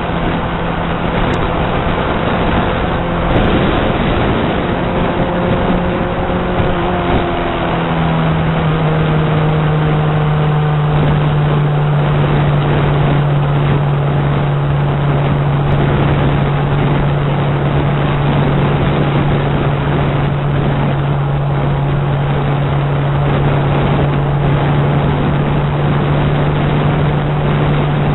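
Honda CBR600RR's inline-four engine droning steadily at cruising speed under a constant rush of wind noise; the engine note drops slightly about eight seconds in, then holds steady.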